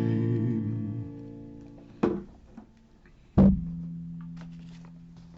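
The final chord of the hymn accompaniment rings out and fades. About two seconds in there is a knock, and a second and a half later a louder thump, after which a single low note rings and slowly dies away.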